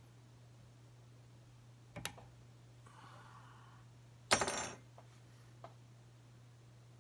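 Small metal fly-tying tools clicking and clattering at the bench: a sharp click about two seconds in, then a louder jingling metallic clatter with a short ring a little past the middle, and a couple of light ticks after it. A low steady hum runs underneath.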